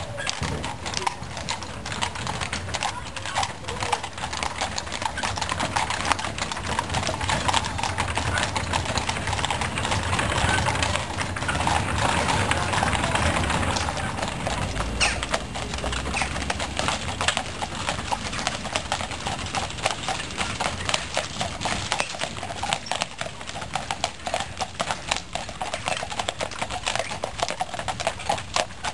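Hooves of a four-horse team clip-clopping steadily as the horses pull a coach, first on cobblestones and later on a paved road.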